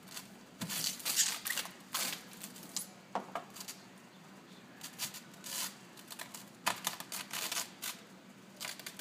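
Clear self-adhesive plastic protective film crinkling and rustling in irregular bursts as hands smooth and press it onto a bathtub, with a few sharper clicks.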